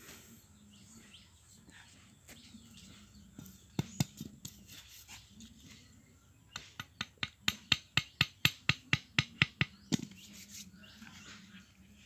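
Small wooden stake being knocked into the ground with a machete: two knocks a little before halfway, then a quick run of about fifteen sharp knocks, about five a second, in the second half.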